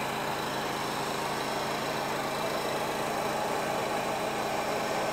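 Hand-held air dryer blowing steadily, a constant rushing with a faint hum under it, drying a coat of water-based airbrush paint.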